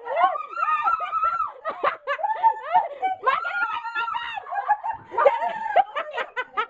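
A dog yelping and whining in a quick run of short, high-pitched cries that rise and fall.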